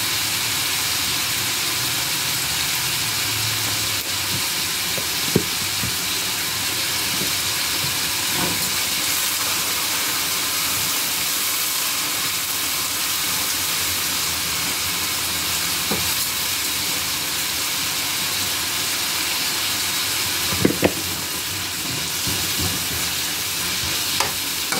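Diced vegetables (carrot, chayote, tomato and onion) sizzling in oil in a skillet, a steady frying hiss, with a few short knocks. Near the end a spoon stirs through the pan with light clicks.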